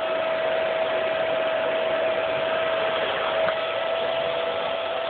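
Vacuum cleaner running steadily: a constant motor whine over an even hiss.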